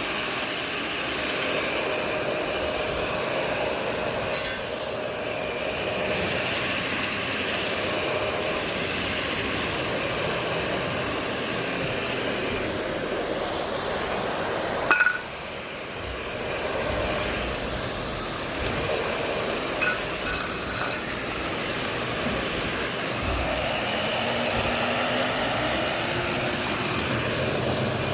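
Shark Navigator NV60 upright vacuum running steadily with its roller brush on over a hard floor. Picked-up debris clinks and knocks through it a few times, loudest about halfway through.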